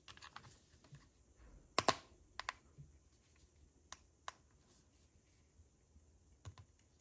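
Sharp plastic clicks and snaps from a Volkswagen key remote's housing being pressed back together as its coin battery is refitted. A close double click about two seconds in is the loudest, and a few lighter ticks are spread through the rest.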